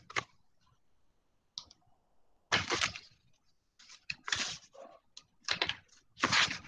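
Several short clicks and rustles, separated by silence.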